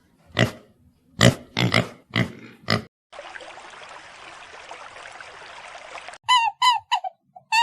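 Animal calls in sequence: five short grunts, then a steady hiss lasting about three seconds, then a rapid run of short honking calls starting near the end.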